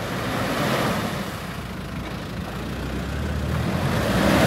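Toyota Land Cruiser's engine running under load as the 4x4 sits stuck in deep mud, getting louder toward the end.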